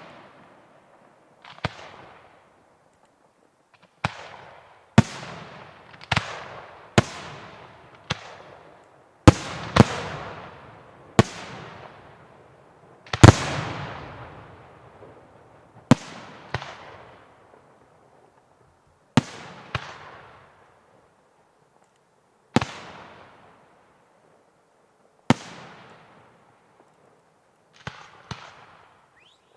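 Aerial firework shells bursting one after another in irregular succession, each a sharp bang followed by a long rolling echo that fades over a second or two. There are a couple of brief pauses, and a cluster of smaller pops comes near the end.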